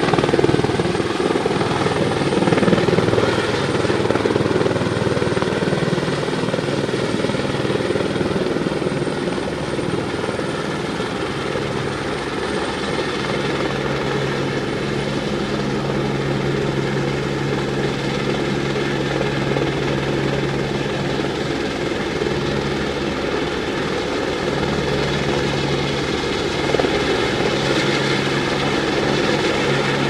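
Helicopter hovering on a long lifting line, its rotor and engine running steadily.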